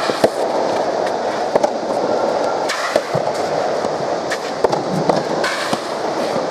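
Irregular sharp pops of rackets striking a soft tennis rubber ball, spaced about a second or more apart, over steady crowd noise.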